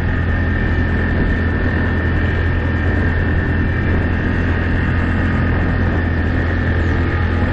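ATV engine running at a steady speed with a continuous low drone and a steady whine above it, as heard while riding.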